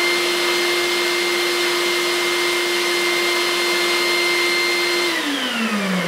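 A shop vac running loud, its hose sucking up a pile of sawdust through a bucket-type Thein cyclone separator, with a steady motor whine over the rush of air. About five seconds in it is switched off and the whine falls as the motor spins down.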